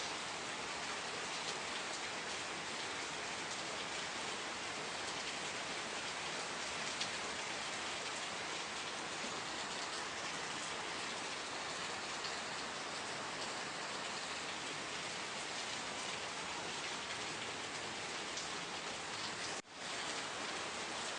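Steady rain falling, an even hiss with scattered drop taps. The sound cuts out for a split second near the end, then returns.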